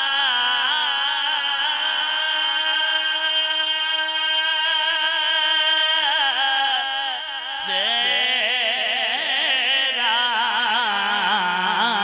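A male reciter sings a naat, a devotional poem in praise of the Prophet, into a microphone in long, wavering held notes. About seven and a half seconds in, the voice breaks off briefly and starts a new, lower phrase with many quick turns of pitch.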